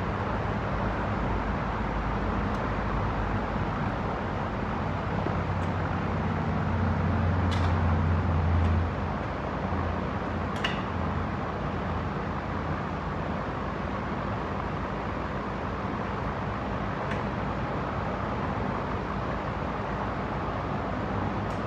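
Steady low hum of shop background noise that swells for a few seconds about six seconds in, with a few light metallic clicks as a long breaker bar and socket are worked on a wheel hub.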